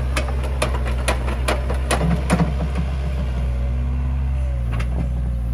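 Mini excavator's diesel engine running steadily, with a quick run of sharp clanks and knocks over the first three seconds and one more near the end as the machine digs.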